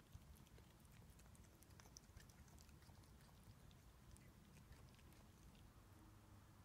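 Faint chewing of a cat eating Chinese broccoli off a plate: many small, irregular clicks and smacks over a low hum.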